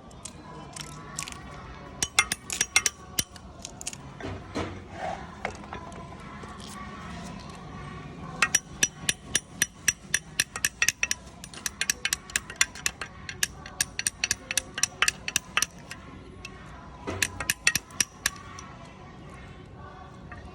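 Rapid, regular metallic clicking from hand tools working on an old air compressor's metal parts, in bursts of about four to five clicks a second with a long run in the middle.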